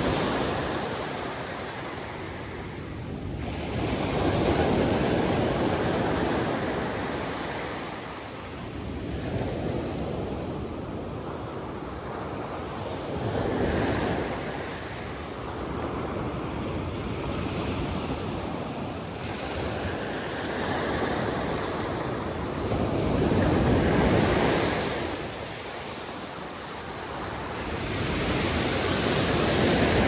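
Sea waves surging and washing back, the noise swelling and fading every four to six seconds.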